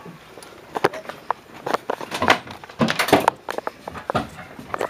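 A refrigerator being manhandled, giving a run of irregular knocks, clunks and scrapes that are thickest in the middle.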